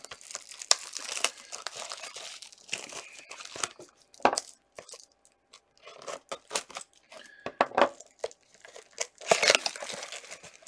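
Cellophane shrink wrap on a sealed trading-card box being slit with a cutter and torn off, crinkling and crackling in irregular bursts. A louder burst of tearing comes near the end.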